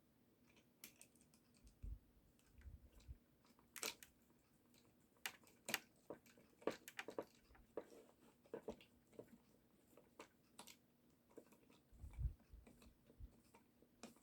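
Faint, irregular clicks and taps of a small screw being driven into the plastic housing of a dancing-toy mechanism, with plastic parts being handled and a few soft knocks.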